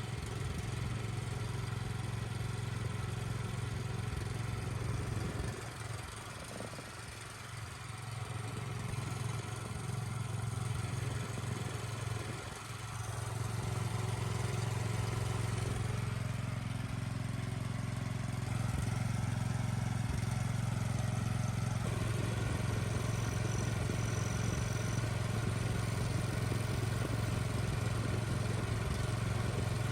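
Pressure washer's small petrol engine running steadily, with a couple of brief dips in level.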